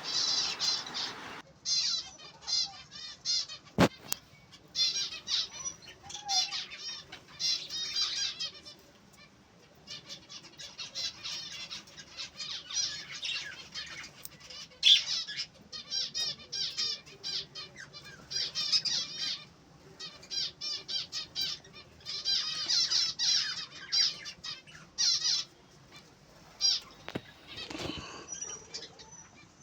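Small cage finches chirping in many quick clusters of high calls, with one sharp click about four seconds in.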